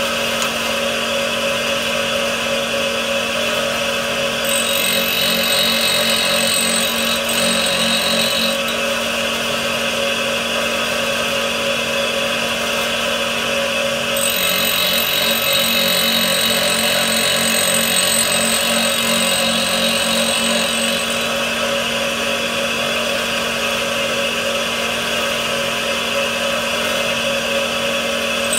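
Homemade tool grinder with a 100 mm, 180-grit diamond cup wheel running steadily, its motor giving a constant hum. Twice the wheel grinds the front cutting edges of an end mill, adding a high whine for several seconds each pass.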